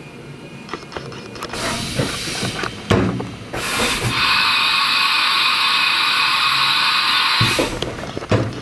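Haas EC-300 CNC horizontal mill turning its rotary 4th axis: several mechanical clicks and clunks, then a steady, loud air hiss for about four seconds that cuts off abruptly, followed by a few more clunks.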